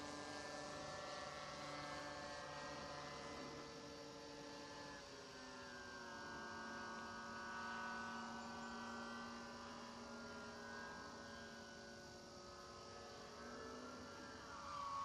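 Motor and propeller of a small radio-controlled foam model plane in flight, a faint steady whine. Its pitch drops about five seconds in as the throttle changes, then rises and falls again near the end.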